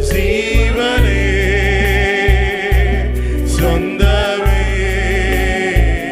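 Malayalam Christian worship song: voices holding long, wavering notes over a band with a heavy pulsing bass and drum beat.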